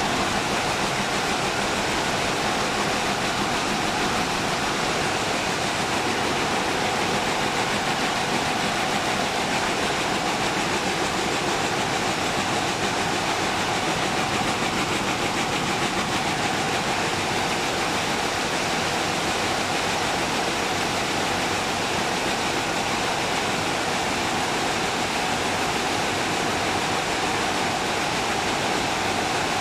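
Picanol rapier weaving looms running at full speed: a dense, unbroken mechanical clatter. Many looms in the weaving hall run together.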